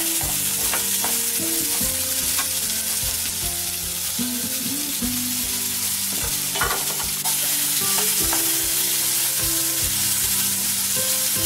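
Sliced carrots and shallots sizzling in hot oil in an aluminium kadai, stirred with a spatula that scrapes and taps against the pan now and then; a small cluster of knocks comes about six and a half seconds in. The vegetables are being lightly sautéed, the first stage of a sambar.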